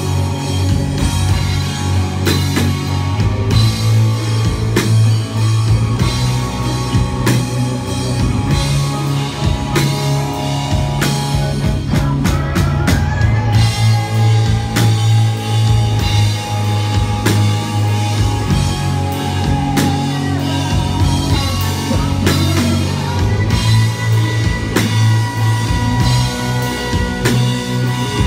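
Live rock band playing an instrumental passage: drum kit and electric guitar over a steady bass line, loud and continuous.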